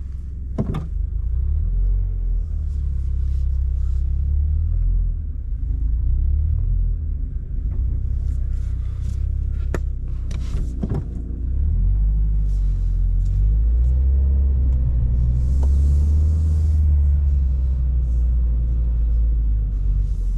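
2023 Subaru BRZ's flat-four engine running through an Elite Spec cat-back exhaust, a steady low rumble that swells and eases, with a few sharp clicks.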